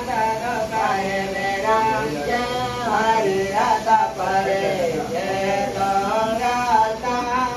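A male voice singing a slow devotional chant, with long held notes that bend up and down.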